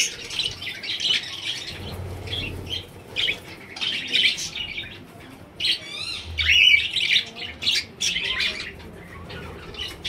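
A flock of budgerigars chattering, with many quick high chirps and warbling squawks overlapping; the busiest bursts come about six to seven seconds in.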